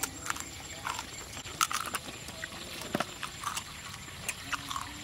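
A person chewing crispy sugar-coated fried potato close to the microphone: irregular crunches and small wet mouth clicks.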